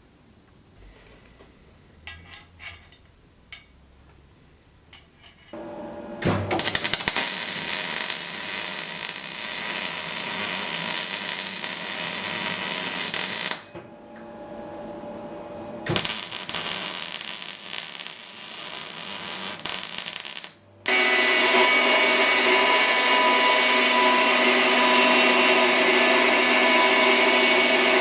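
An electric power tool starts about five seconds in after a few light clicks of handling. It runs, cuts out briefly twice, then runs steadily with a constant whine.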